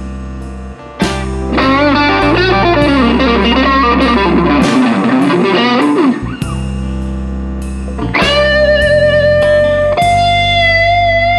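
Electric blues guitar solo over a bass line: a fast run of bent, wavering notes, then from a little past the middle long held notes with vibrato.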